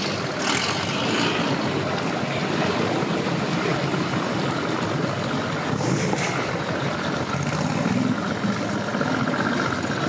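Mercury outboard motor on a small runabout idling steadily as the boat is motored slowly away from the dock.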